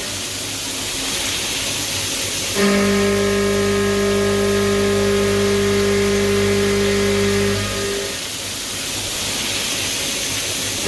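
CNC milling machine running while cutting pockets in vise soft jaws, with a steady, pitched hum. Twice the hum drops out for a few seconds, about 2.6 seconds in and again near the end, leaving only a hiss.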